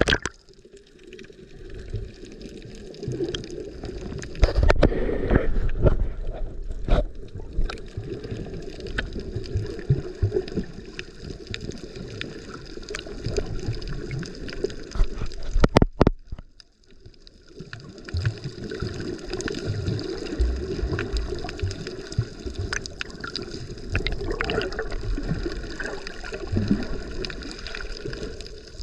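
Muffled sea water sloshing and gurgling around a snorkeler's camera, heavy and low in pitch. About halfway through there are a couple of sharp clicks and a brief lull.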